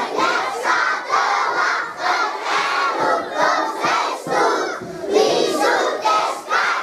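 A large group of young children singing a Sinterklaas song together, loud and half-shouted, in a steady beat of syllables.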